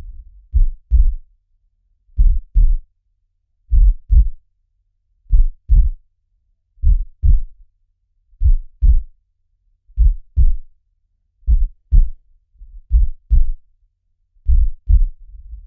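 Slow heartbeat, about forty beats a minute: a steady run of paired low thumps (lub-dub), one pair roughly every second and a half.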